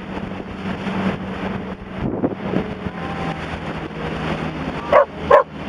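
Pontoon boat's motor running steadily under wind noise on the microphone, its pitch dropping slightly about two seconds in. Two short loud cries come near the end.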